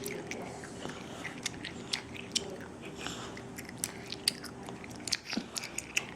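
A three-year-old chewing gum: irregular wet smacking clicks, several a second.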